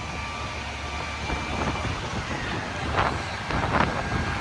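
Wind buffeting the microphone over a steady rumble of street traffic, with two short, brighter sounds about three and four seconds in.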